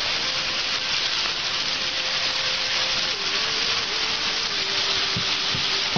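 Ground-beef burger patty searing in hot oil in a skillet, a steady sizzle, with a faint steady tone beneath it that steps down in pitch about halfway through.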